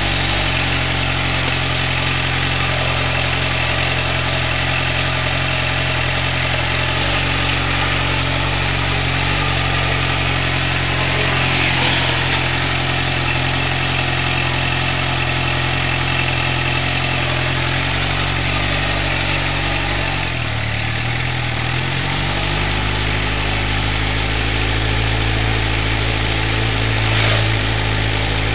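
Vehicle engine idling steadily. Its note shifts about two-thirds of the way through and rises a little near the end as the vehicle pulls away.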